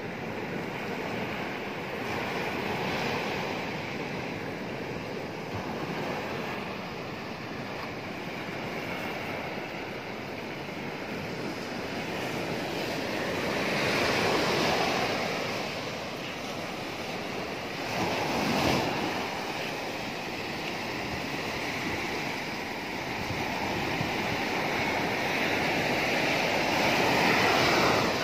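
Sea surf breaking and washing up a dark gravel beach: a continuous rushing wash that swells as each wave comes in, loudest about halfway through and again near the end.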